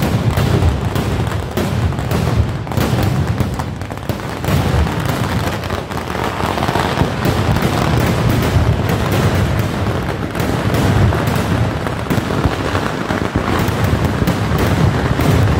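Kerala temple fireworks (vedikkettu) going off in a dense, unbroken barrage: many rapid, overlapping bangs and booms from ground-fired and aerial shells over a deep, constant rumble.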